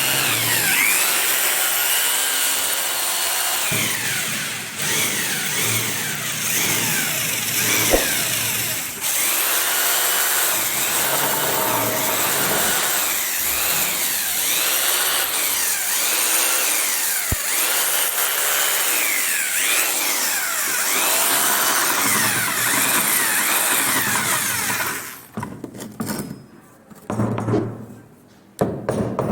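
Power tool cutting or working wood, loud and continuous, its whine rising and falling in pitch every couple of seconds as it loads and unloads. About 25 seconds in it stops and gives way to a few scattered knocks.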